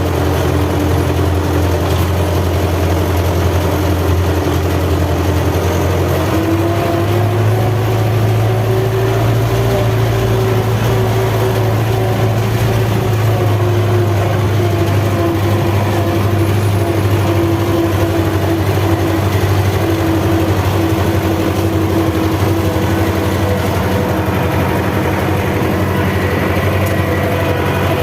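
MTZ Belarus tractor's diesel engine running steadily, its pitch rising slightly about seven seconds in and then holding.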